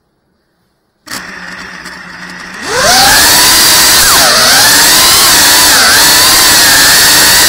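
FPV quadcopter motors and propellers heard from the onboard camera: they start spinning slowly about a second in, then spool up in a fast rising whine for takeoff. The loud whine then holds, dipping in pitch twice with throttle changes.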